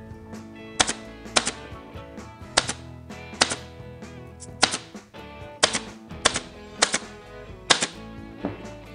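Pneumatic upholstery stapler firing staples through fabric into a wooden headboard panel: about nine sharp shots, roughly one a second at an uneven pace, some with a quick double click.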